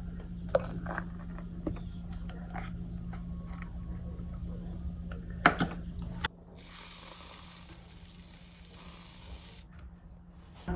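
Coffee being made: a machine's steady low hum with scattered clinks and clicks, which cuts off about six seconds in. A loud hiss follows for about three seconds.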